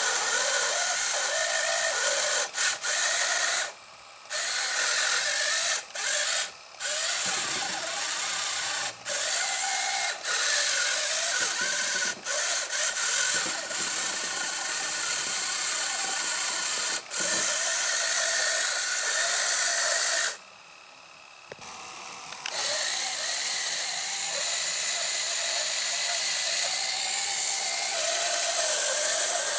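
Small geared electric motors of a scale-model Kubota DC-70 Plus combine harvester whirring with a wavering whine. They stop and start abruptly several times, with a longer pause about two-thirds of the way through.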